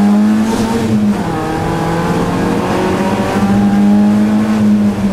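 Onboard sound of a BMW E30 318iS rally car's 1.8-litre four-cylinder engine running hard at high revs, heard inside the cabin. Its pitch drops about a second in at a gear change, then climbs steadily again as the car accelerates and holds high near the end.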